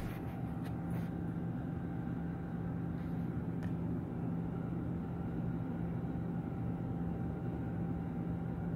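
A steady low hum with a thin steady tone above it, unchanging in level, and a couple of faint soft clicks.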